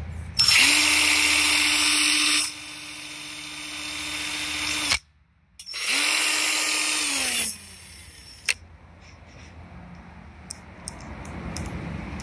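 Cordless drill spinning its bit into a small sac stuck to painted sheet metal, in two runs: the first loud, then quieter, stopping abruptly; the second shorter, its pitch falling as the motor winds down. A few light clicks follow.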